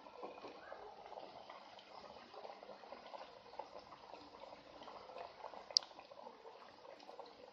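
Makrout pastries deep-frying in a pan of hot oil inside a wire frying basket: a steady, faint sizzle and crackle of bubbling oil over lowered gas. One sharp click late on.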